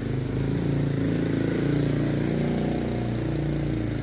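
A small engine running steadily, its pitch wavering a little.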